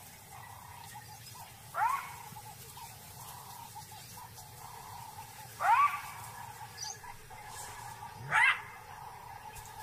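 Side-striped jackal giving alarm barks: three short, sharp yelps that each rise in pitch, a few seconds apart.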